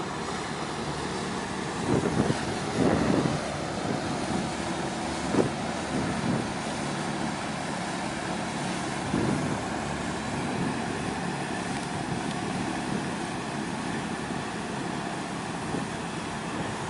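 Steady low drone of a harbor tug's diesel engine as it tows a ship, with a few brief louder rushes of noise about two to six seconds in.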